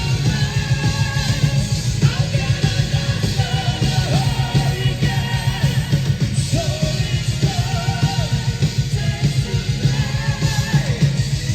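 Live symphonic metal band playing loudly: fast, dense drums and heavy bass under a singing voice with wavering, held notes.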